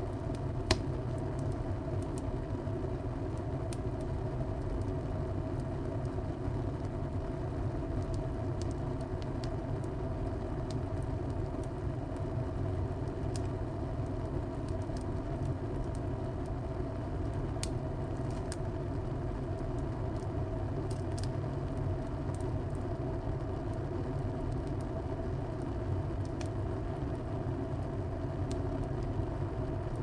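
Wood fire burning in a tile stove: a steady low rumble with scattered sharp crackles and pops, the loudest just under a second in.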